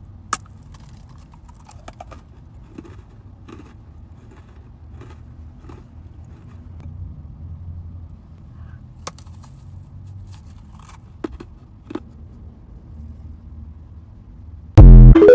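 Quiet eating: faint chewing with scattered small clicks and crunches over a low steady hum. Near the end, a sudden very loud short burst with a ringing tone cuts in.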